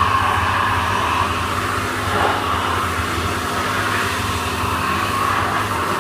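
Hot water pressure washer running steadily: a constant hum from the machine under the hiss of the high-pressure spray blasting water onto an ATV cylinder head inside a metal wash cabinet.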